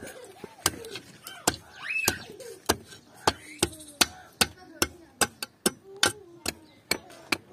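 A hammer knocking the wooden handle scales onto a sword's tang: an even run of sharp taps, about two or three a second.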